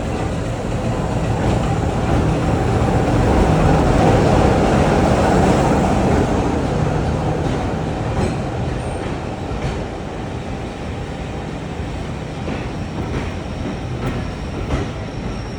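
Class 27 diesel-electric locomotive with a Sulzer six-cylinder engine running as it pulls in. The engine hum and wheel noise swell to their loudest about four seconds in, then ease off. A few clicks come from the wheels over rail joints, and a thin high squeal rises near the end as it slows.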